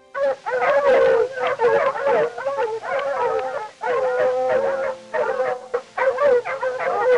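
Arctic fox calls, a rapid run of wavering yips and howling cries that break in abruptly, overlap and go on with only brief pauses.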